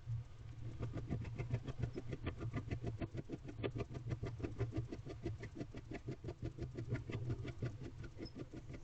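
Barn owl preening, its bill nibbling through its feathers in a rapid run of soft ticks, several a second, over a steady low hum.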